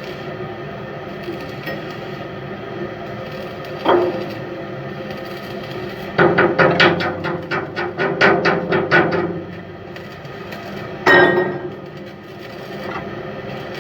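A quick series of sharp knocks, about four a second for some three seconds, with single knocks before and after, over a steady machinery hum.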